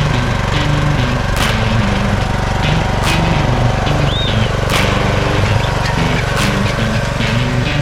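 Jansen gas-powered wood chipper running steadily, its engine note shifting in pitch under load, with a sharp crack about every second and a half.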